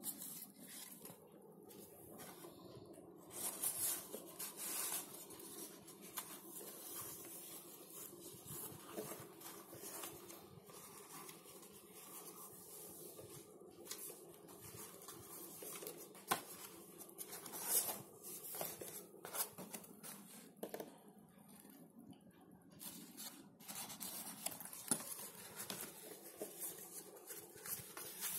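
Paper and cardstock of a handmade gift box being handled as its flaps and photo panels are opened and folded: rustles, light taps and scrapes at irregular intervals, a little louder around four seconds in and around seventeen to eighteen seconds in.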